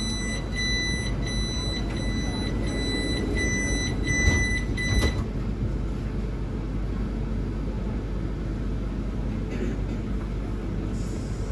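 Door-closing warning beeper of a PESA EN97 WKD electric multiple unit sounding a string of high beeps, then the doors shutting with two thuds about four and five seconds in. A steady low hum of the train carries on throughout.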